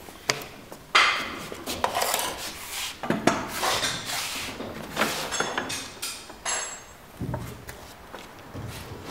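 Irregular knocks, clinks and scraping rubs from the metal frame, clamps and rails of a hand-push HDPE butt fusion machine being handled. The sharpest knock comes about a second in.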